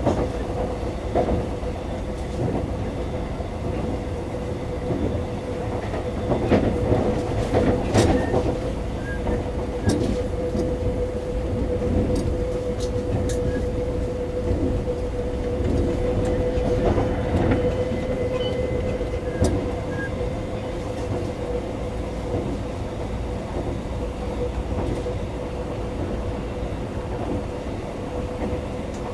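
Running noise inside a Taiwan Railway EMU400 electric commuter train car under way. A steady rumble and a steady hum run throughout, with scattered sharp clicks of the wheels over the track that are loudest about six to ten seconds in.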